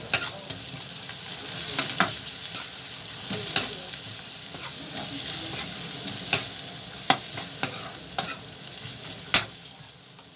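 Sliced onions and green chillies sizzling in hot oil in a steel kadai while a metal ladle stirs them, scraping and clinking against the pan every second or so. The onions are frying towards golden brown. The sizzle fades near the end.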